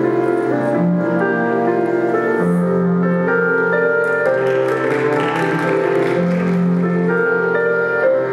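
Instrumental music with piano and sustained notes, swelling into a brighter, noisier passage about halfway through.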